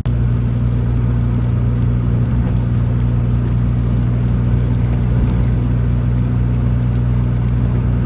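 Car engine and road noise heard from inside the cabin while driving at a steady speed: an even, low drone.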